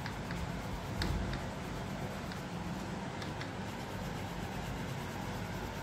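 Coloured pencil rubbing and scratching on paper as a picture is coloured in, with a few faint ticks, over a steady low background hum.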